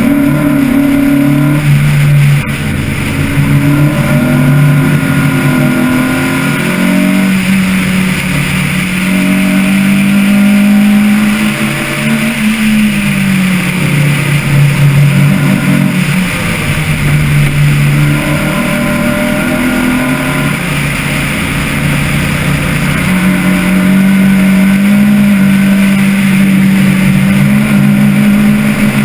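Car engine heard close from an onboard camera while the car is driven on a track, its note climbing and dropping again and again as it accelerates and lifts off.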